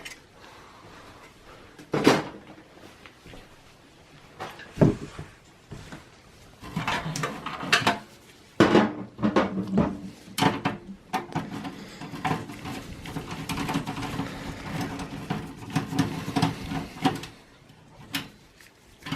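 Hands working the plastic and sheet-metal parts of a desktop computer case during disassembly: separate sharp clicks and knocks, then a longer stretch of small clattering and rubbing.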